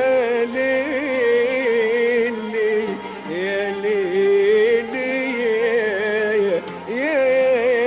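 Live Middle Eastern music: long, ornamented held phrases with sliding, wavering notes, a singer's improvised passage over an Arabic orchestra.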